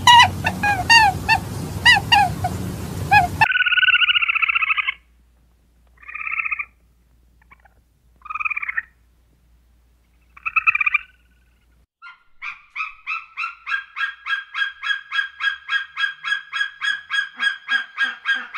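Animal calls, changing with cuts between clips. First comes a quick run of repeated calls that fall in pitch, over a low hum. After a cut there is one longer call and then three short separate calls about two seconds apart. Near the end comes a fast, steady series of calls, about four a second.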